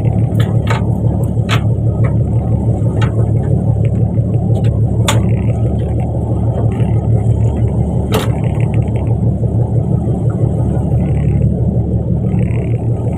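A fishing boat's engine running steadily with a low rumble, with a few sharp knocks or clicks scattered over it.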